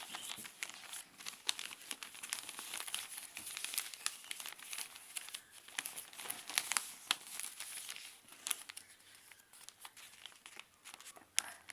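Newspaper being folded and creased by hand: irregular rustling and crinkling of the paper, with sharp crackles as folds are pressed down.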